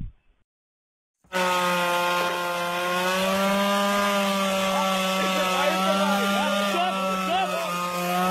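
Small two-stroke chainsaw engine running at high, steady revs, cutting in suddenly about a second in.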